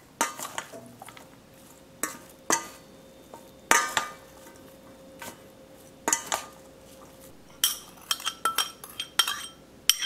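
Metal spoon and chopsticks tossing a vegetable salad in a stainless steel mixing bowl, with irregular clinks against the bowl and a quicker run of ringing clinks near the end.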